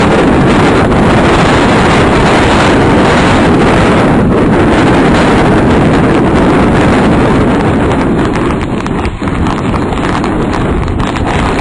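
Tornado wind buffeting a microphone: a loud, steady rush of wind noise with scattered knocks, easing slightly about eight seconds in.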